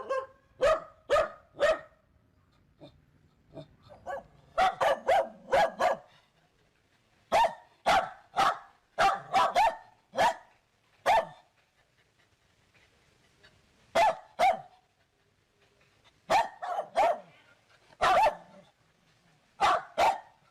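A dog barking repeatedly: short, sharp barks in irregular runs of one to six, with pauses of a second or more between runs.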